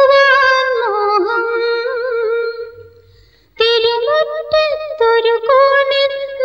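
Background music: a woman singing a slow Malayalam film song, with long held notes and vibrato. The singing fades out about three seconds in and picks up again half a second later.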